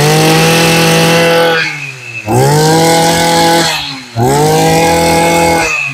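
Robin BF2100 two-stroke brush cutter engine revved hard three times. Each burst climbs quickly to high revs, holds about a second and a half, then drops back toward idle.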